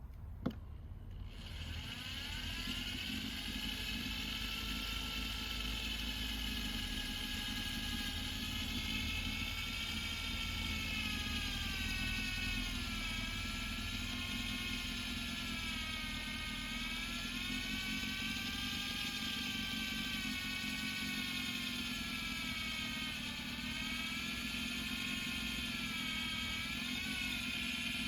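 Electric drill running steadily, drilling a small wiring hole in a car's rear bumper. Its whine starts about a second and a half in, with the pitch wavering up and down as the bit loads and frees.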